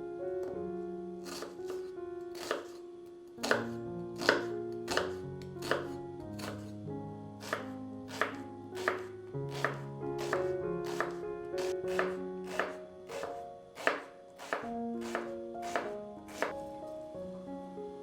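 Knife chopping vegetables on a cutting board: a run of sharp taps, a little under two a second, starting about a second in and stopping near the end. Soft melodic background music plays throughout.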